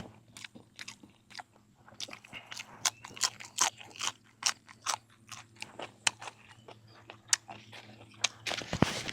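A person chewing and crunching mouthfuls of food close to the microphone: many irregular, crisp crunches, thickest a couple of seconds in and loudest near the end.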